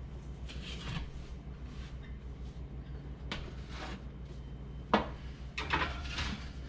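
A perforated metal pan of flower pots being handled and slid onto a wire oven rack: light scrapes, a sharp knock about five seconds in, then a short clatter of metal on the rack. A steady low hum runs underneath.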